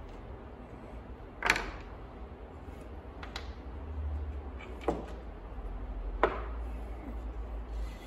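Steel lathe chuck parts knocking and clinking as they are handled, turned and set down on a bench: four sharp metallic knocks a second or so apart, the first the loudest and ringing briefly.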